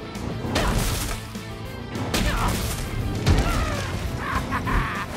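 Cartoon soundtrack: background music with heavy crash and thud effects from a monster truck driving over dirt, three big hits in the first few seconds.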